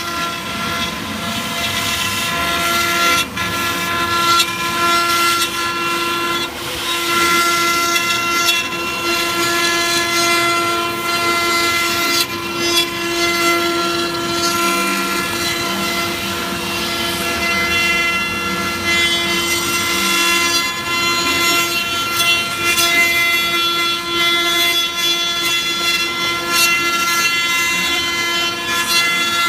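The spindle of a 6090 mini CNC router runs with a steady high whine while its bit carves a wood relief panel, with a rough cutting noise and scattered sharp ticks.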